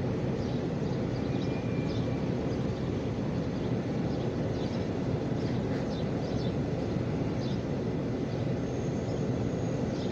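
Steady low rumbling noise with a few faint light ticks scattered through it.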